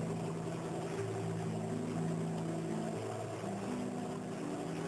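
An outboard-powered motorboat running under way, under slow, held low notes that step to a new pitch every second or so.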